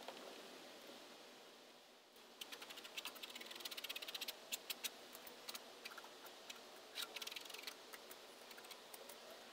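Faint handling noise from a painting table: a quick run of small clicks and light rattles starts about two seconds in, is thickest around four seconds, then thins to scattered ticks.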